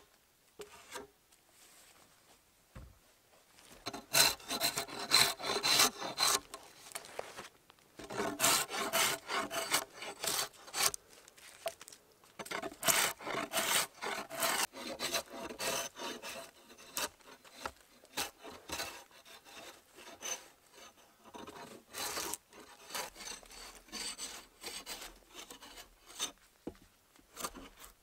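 Drawknife scraping and shaving bark off a freshly cut pole in quick repeated strokes. The strokes come in bursts of a few seconds, the heaviest a few seconds in, after a mostly quiet start with a few light knocks.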